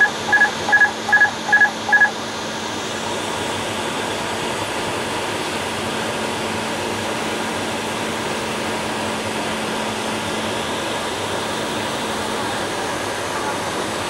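Six quick two-pitch electronic beeps from a Bombardier Global 6000 flight-deck alert in the first two seconds, then the steady rush of cockpit noise in flight, with a faint steady hum.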